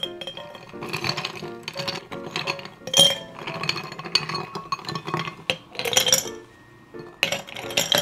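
Ice cubes clinking against glass as they are spooned from a glass bowl into a glass mason jar. There are sharp clinks at the start, at about three and six seconds, and a quick run of them near the end, over light background music.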